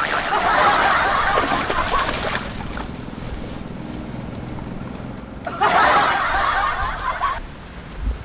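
Snickering laughter in two bursts: one in the first two seconds and another of about two seconds just past the middle, the second starting and stopping abruptly like an added comedy sound effect.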